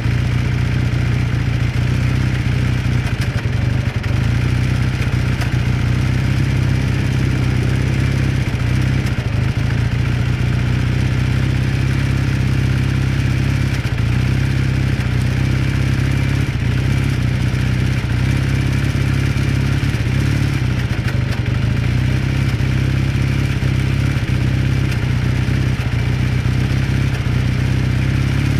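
1981 Kawasaki KZ440's parallel-twin engine idling steadily as it warms up, with a knocking noise in its running.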